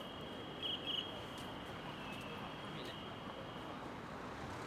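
Street background noise with a faint, steady high-pitched whistle-like tone lasting about four seconds, briefly louder and warbling twice about a second in.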